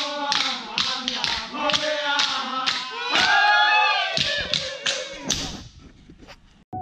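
Group of dancers in a traditional Vanuatu custom dance, chanting together while stamping their feet at a steady beat of about two stamps a second. About three seconds in the voices swell into a long, loud held call, then fade away near the end.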